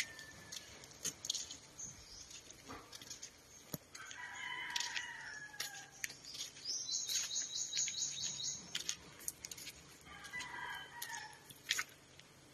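A rooster crowing twice, one long falling crow about four seconds in and another near ten seconds, with a fast, high, evenly pulsed chatter from another bird in between.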